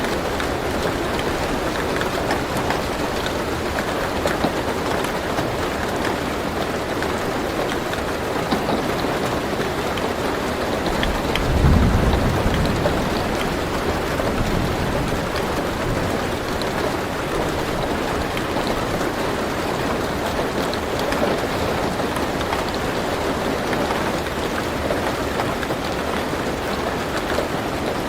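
Steady rain falling on a car roof, heard from inside the car, with one low roll of thunder about twelve seconds in.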